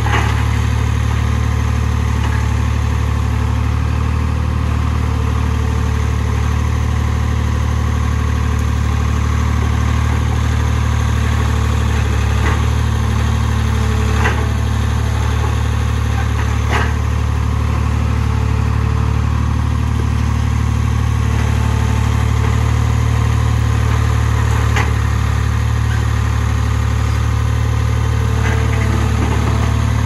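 Skid loader engine running steadily at a constant speed, with a few light clicks over it.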